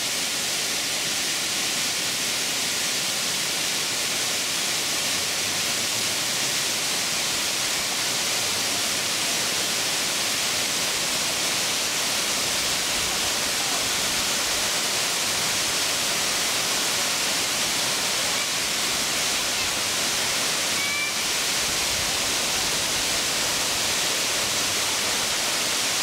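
Waterfall with several broad streams plunging into a pool, making a steady, even rush of water with a hissy top.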